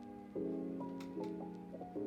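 Instrumental background music: held chords, a new one struck roughly every half second to second.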